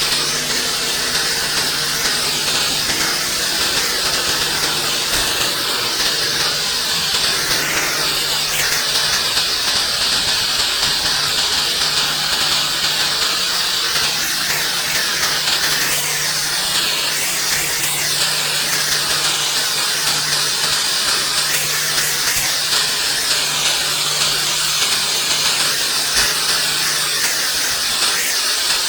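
Pressure washer spraying: a steady hiss of high-pressure water, with a low steady hum from the machine underneath.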